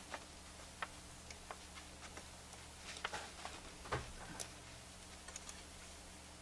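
Faint small clicks and taps of wire and component leads being handled and bent inside a metal tube-radio chassis, with a louder tap about four seconds in, over a steady low hum.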